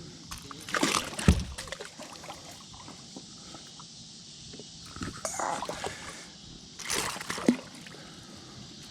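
Water splashing and sloshing at the side of a kayak, in short bursts about a second in, around five seconds in and about seven seconds in.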